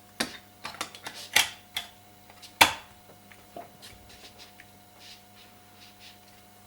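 Clicks and light knocks of the Apple TV 4's main circuit board being set back into its case. There are several sharper knocks in the first three seconds, then fainter ticks.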